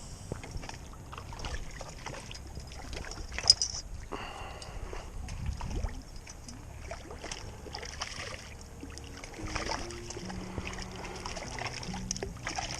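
Scattered clicks and knocks over a low outdoor rumble, with a short hiss about four seconds in. A simple melody of held, stepping notes comes in about nine seconds in.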